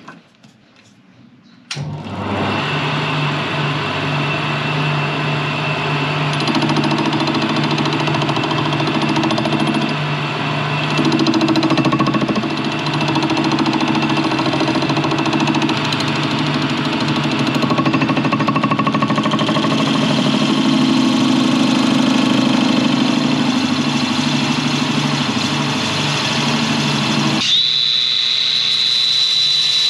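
Metal lathe starting up about two seconds in and running steadily, turning a bronze through-hull fitting to smooth its filter. Near the end an angle grinder is started and held to the spinning bronze, adding a high whine that sags slightly.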